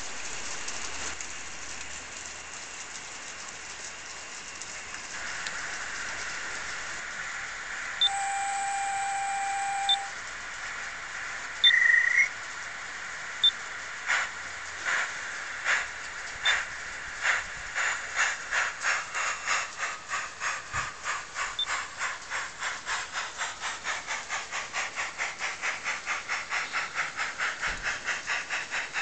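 Garden-railway model steam locomotive hissing steadily, giving a whistle lasting about two seconds and then a short toot. It starts off with slow exhaust chuffs that quicken to about three a second as it gets under way.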